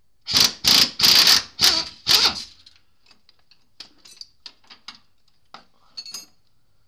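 Air impact wrench hammering in five short trigger bursts, backing out a front differential mounting bolt. After it, light metallic clicks and rattles as the bolt and tool are handled.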